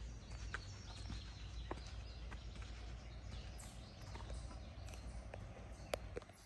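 Footsteps on a dirt path, a run of irregular soft crunches and clicks over a low steady rumble, with one sharper click near the end.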